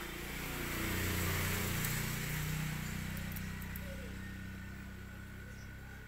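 A motor vehicle passing by. Its engine hum and road noise swell to a peak a second or two in, the engine's pitch drops as it goes past, and the sound slowly fades.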